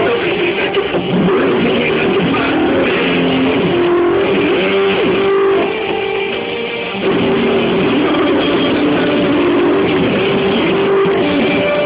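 Background rock music with guitar, briefly quieter about six seconds in.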